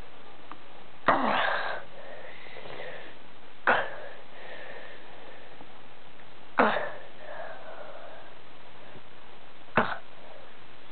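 A sleeping man snoring: four loud snorting breaths about three seconds apart, each starting abruptly and trailing off within a second, some with a thin whistle.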